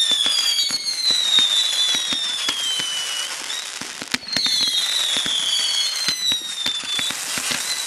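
Consumer fireworks with several shrill whistles at once, each slowly falling in pitch, over constant crackling and popping. A fresh wave of whistles starts with a sharp crack about four seconds in.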